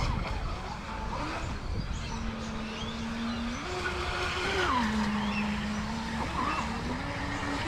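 Battery-powered RC jet boat running across the water at a distance, its motor and jet pump giving a steady whine that steps up and down in pitch with the throttle, rising about three and a half seconds in, dropping a second later and rising again near the end. The pump is holding water rather than sucking air, with the new intake scoop fitted.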